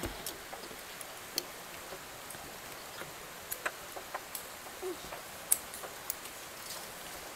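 Irregular light clicks and knocks of a person crawling on hands and knees through a suspended tunnel of wooden slats, the hands, knees and shoes tapping on the boards. The loudest knock comes about five and a half seconds in.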